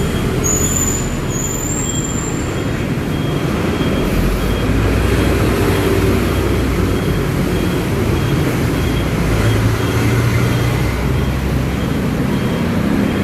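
Steady street traffic noise from passing road vehicles, with two brief high squeaks about a second in and a faint, evenly repeating high tick underneath.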